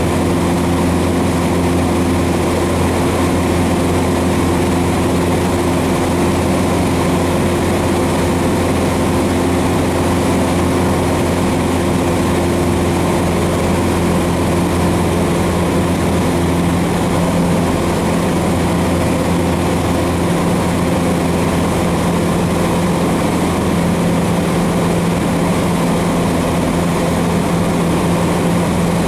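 Cessna 150's Continental O-200 four-cylinder engine and propeller running steadily in flight, heard inside the cabin as a loud, even drone.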